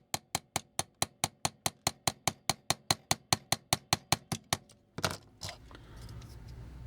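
Rapid, evenly spaced clicking, about five to six sharp clicks a second for nearly five seconds, then a couple of louder knocks and a low steady hum.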